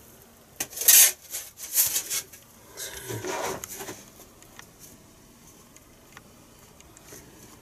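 Hands rubbing and pressing on foam wing pieces: several short scratchy rubs in the first two seconds, a softer one a little after three seconds, then only faint handling.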